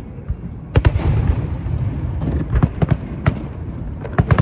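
Fireworks going off: sharp bangs over a continuous low rumble, a pair about a second in, a quick run of several in the middle, and another pair near the end.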